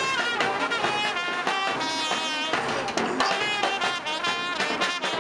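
Live street band playing: a trumpet carries a tune in held notes over occasional bass drum beats.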